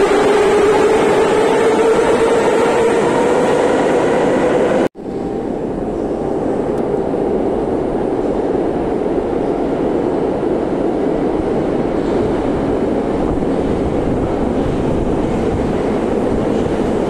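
Moscow Metro 'numbered' (81-717/714) train pulling out, its traction motors giving a whine that rises in pitch. The sound breaks off sharply about five seconds in, then the rumble of another train coming into the station builds and holds.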